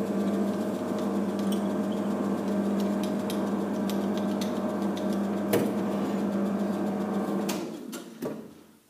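Bernardo bench metal lathe running with a steady motor and gear hum while a drill bit in the tailstock chuck bores into the spinning part, with scattered ticks and one sharp click from the cut. About seven and a half seconds in the lathe is switched off and the hum dies away, with a click near the end.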